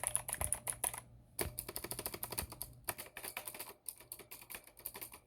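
Fast typing on a mechanical computer keyboard fitted with a swapped-on set of keycaps: a rapid run of key clicks with two short breaks.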